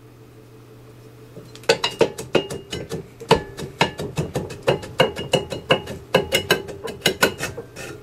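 Brake drum being rocked and pulled off the hub of an early Dana 44 axle by hand. After a quiet start, irregular metallic clanks and clicks come several times a second, some with a short ring.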